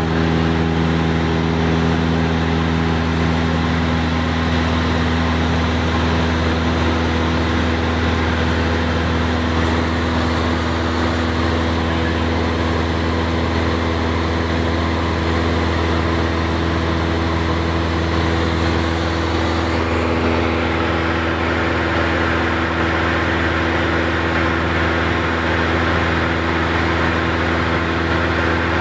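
Single-engine piston airplane's engine and propeller droning steadily at climb power, heard from inside the cockpit. The tone shifts slightly about two-thirds of the way through.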